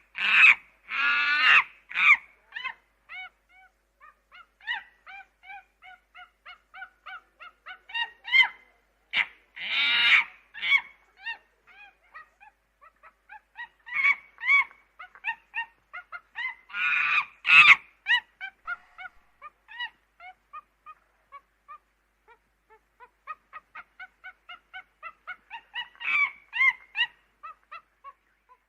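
Chimpanzee calling: runs of short, quick hoots that build into loud screams, several times over. The loudest screams come about a second in, around ten seconds in and around seventeen seconds in.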